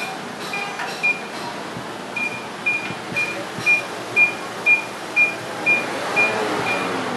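A short, high electronic beep repeating about twice a second over steady background noise, with a pause of about a second shortly after the start.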